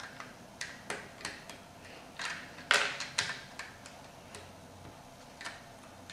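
Plastic LEGO bricks clicking and snapping as they are pressed together onto a model, a string of irregular sharp clicks with the loudest cluster about two and a half seconds in.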